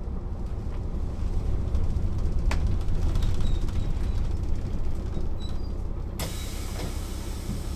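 Mercedes-Benz O 407 city bus (first registered 1993) heard from inside while moving: the six-cylinder diesel engine and drivetrain give a steady low rumble. A single sharp click comes about two and a half seconds in, and a steady hiss starts suddenly about six seconds in.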